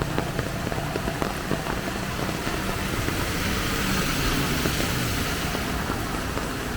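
Heavy rain falling steadily, with many small drop ticks, over a low motor vehicle engine sound; a hiss swells and fades in the middle, as of a vehicle passing on the wet road.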